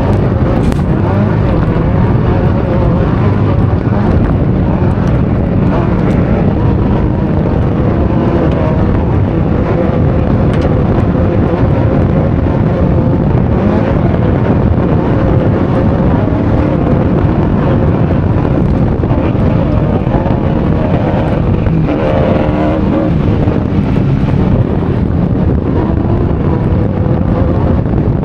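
Off-road race vehicle's engine running hard at speed, heard from onboard, with wind buffeting the microphone and scattered rattles. The engine note wavers briefly about two-thirds of the way in.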